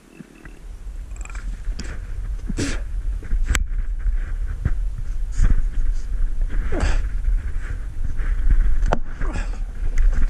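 A man straining to push over a standing dead tree, grunting and breathing hard over heavy low rumbling and rubbing. Two sharp cracks come about three and a half seconds in and about nine seconds in.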